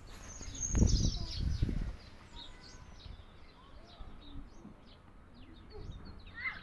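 Small birds chirping and twittering in short, repeated high calls, with a louder burst of low rumbling noise about a second in.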